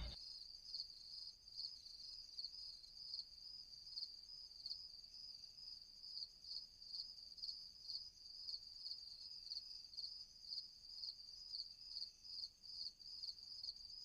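Faint, steady chorus of crickets chirping: a high, even pulsing about twice a second.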